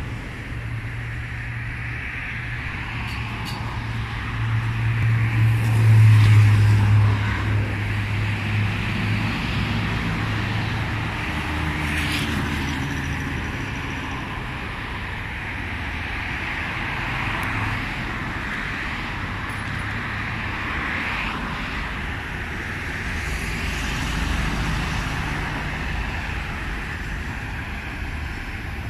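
Road traffic noise: a steady background rush with a low engine hum that swells and is loudest about six seconds in, as a vehicle passes close.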